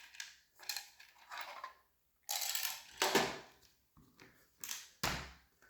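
Paintball marker magazines being handled and fitted against each other: a series of short clatters, knocks and scrapes, the loudest about three seconds in.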